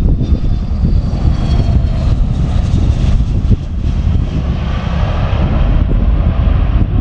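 Jet engines of a Gulfstream business jet landing and rolling out, its twin rear-mounted turbofans giving a high whine that falls in pitch over the first two seconds, over a heavy low rumble. The engine noise swells again from about four seconds in.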